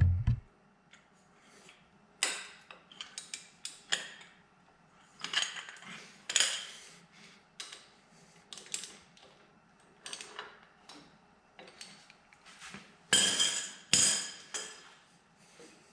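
Metal hand tools and parts clinking, scraping and clattering in irregular short knocks during motorcycle engine disassembly, with a louder clatter of metal on metal about thirteen seconds in.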